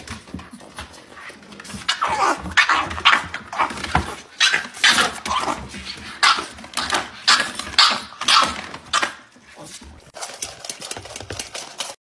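Small dog barking excitedly in a quick, uneven run of barks as it waits to be fed, easing off near the end.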